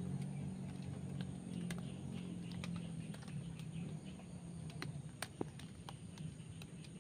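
Riverbank ambience: a low steady hum that fades away about halfway through, under a thin steady high-pitched tone and scattered light clicks at irregular intervals.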